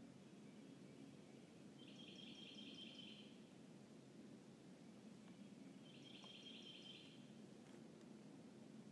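Quiet woodland with a small songbird singing twice, each song a rapid series of high notes lasting about a second and a half, about four seconds apart.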